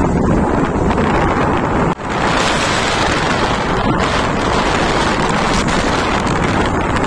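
Loud, steady wind rush buffeting the microphone while riding a motorcycle, with vehicle noise under it; it cuts out for an instant about two seconds in.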